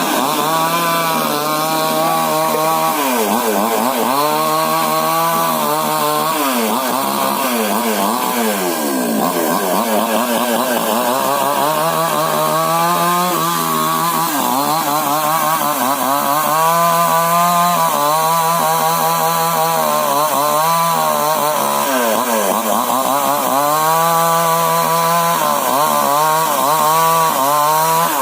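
Maestro two-stroke chainsaw with a 22-inch bar cutting into hard old coconut-palm wood. The engine pitch drops again and again as the chain bogs in the cut and climbs back when the load eases.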